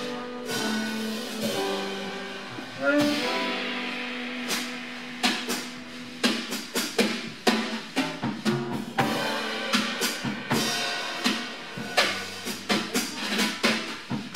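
Live jazz quartet of tenor saxophone, piano, upright bass and drum kit. A held saxophone line fades over the first few seconds, and from about five seconds in the drum kit takes over with a busy run of sharp drum and cymbal hits.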